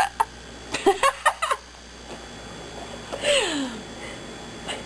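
Girls giggling: a cluster of short quick laughs about a second in, then one longer laugh that falls in pitch a little past the middle.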